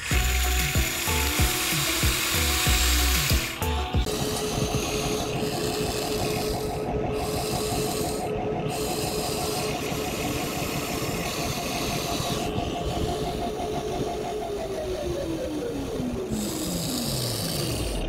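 Small electric motor whining steadily, then slowing down with a falling pitch over the last few seconds, after about four seconds of louder scraping and rumbling.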